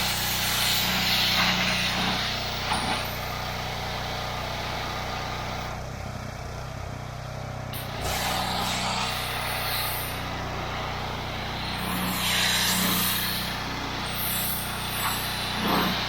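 Pressure washer running steadily with a low hum, its water jet hissing as it blasts grime and black mould off an old truck's bodywork. The spray noise thins for a couple of seconds around the middle, then comes back.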